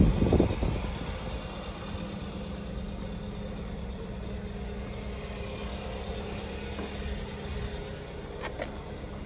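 Kia Sportage's 2.4-litre four-cylinder engine idling steadily. It is loud at the tailpipe at first, then settles to a quieter, even drone after about a second. A few light clicks come near the end.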